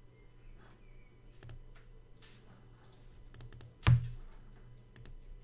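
Scattered short clicks of a computer mouse, with one much louder knock about four seconds in.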